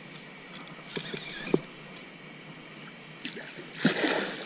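A couple of sharp clicks from the rod and reel being worked, then a short splash near the end, likely the hooked catfish thrashing at the surface. A steady chorus of night insects hums underneath.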